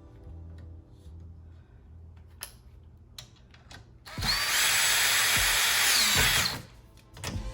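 Power drill fitted with a socket adapter runs for about two and a half seconds, starting about four seconds in, driving in a screw, then stops. A few light clicks come before and after it.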